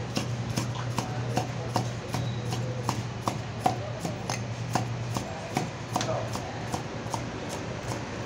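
Heavy knife chopping through hammerhead shark meat into the wooden chopping block, a steady rhythm of sharp knocks about three a second.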